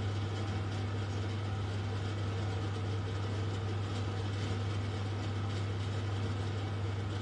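A steady low hum of room background noise, unchanging throughout.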